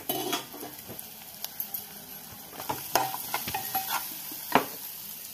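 Metal ladle stirring onions, mutton pieces and ginger-garlic paste frying in an aluminium pot, scraping and clinking against the metal over a steady sizzle of oil. A sharper knock of the ladle on the pot comes about four and a half seconds in.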